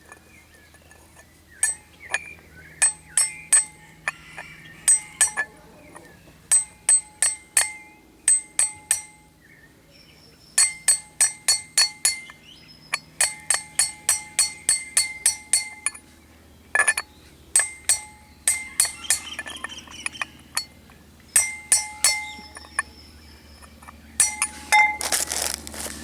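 Hammer striking a steel socket used as a driver to tap a new rear wheel bearing into a VW Pointer's hub: sharp, ringing metallic blows in quick runs of three to six with short pauses between them.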